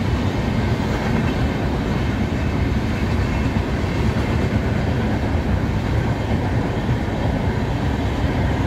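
Steady low rumbling noise, loud and even throughout, with no clear pitched sound or distinct impacts.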